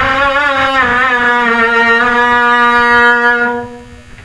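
Music: a single melodic line with wavering pitch holding long notes, fading out about three and a half seconds in.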